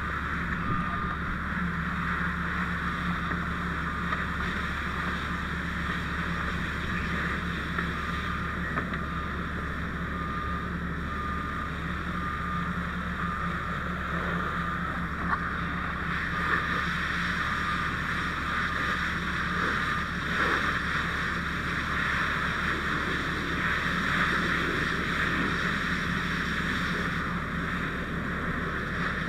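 Fire hose nozzle spraying water onto a car fire: a steady rushing hiss of water striking the car, with a low steady drone underneath. A faint evenly repeating beep runs until about two-thirds of the way through.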